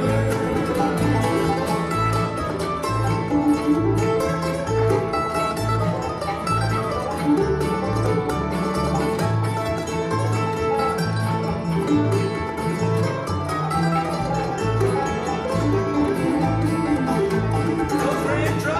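Live bluegrass band playing: banjo, mandolin, fiddle and acoustic guitar over an upright bass keeping a steady beat.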